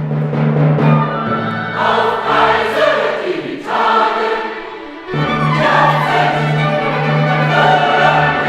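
Choir singing, with held low notes underneath that drop out for about a second and a half midway and then return.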